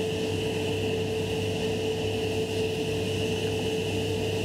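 Table saw running steadily, a constant hum with a high whine and no clear change in pitch.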